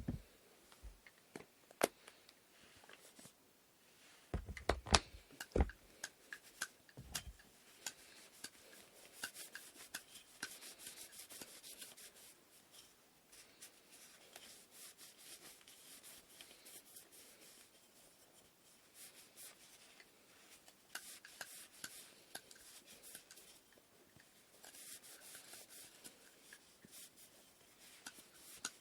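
Wooden inkle loom parts being worked by hand: a few knocks of wood on wood about four to seven seconds in, then spells of quiet scratchy rubbing strokes.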